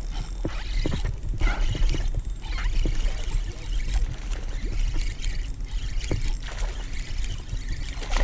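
Shallow water splashing and sloshing around a wading angler, with a steady low wind rumble on the microphone.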